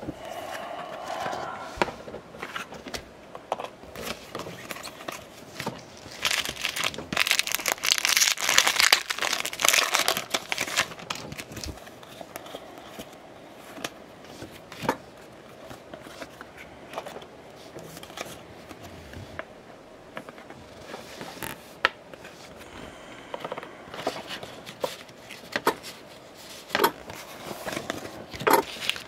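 Stiff baseball trading cards being flipped and slid against one another by hand, with many sharp little clicks and snaps of card edges. Louder crinkling rustle for a few seconds in the first half.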